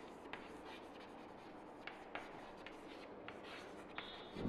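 Chalk writing on a chalkboard: faint scratching, with a few light taps as letters are formed.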